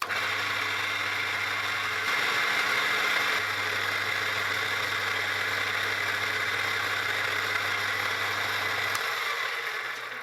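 Milling machine running, extremely noisy, a steady hum under a dense high whine. It starts suddenly and stops near the end, winding down.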